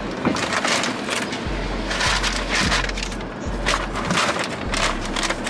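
A paper McDonald's takeout bag being crinkled and rustled open by hand, a run of sharp crackles. Music with deep bass notes plays underneath.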